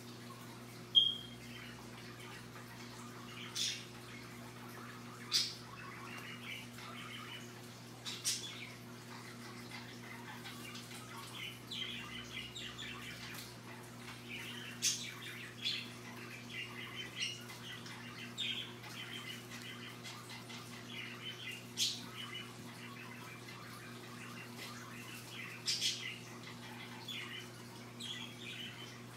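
Scarlet macaw preening, with scattered short sharp clicks and soft chirps, and one sharper chirp about a second in. A steady low hum sits underneath.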